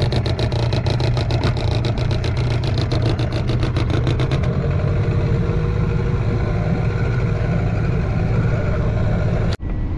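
Hangkai 12 hp outboard motor running steadily under way with a strong low hum, cutting off abruptly near the end.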